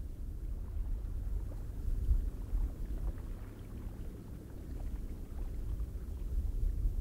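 Low rumbling wind that swells and eases, with faint scattered ticks above it.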